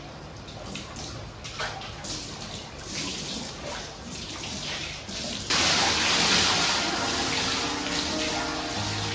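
Hot spring water splashing lightly as a person climbs into a wooden barrel bathtub. About five and a half seconds in, a loud steady rush of pouring water starts suddenly and runs on.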